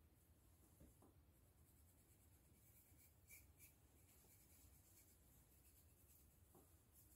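Faint scratching of a pointed tool scraping through short hair on a dry, flaky scalp, with a few short strokes standing out about three seconds in.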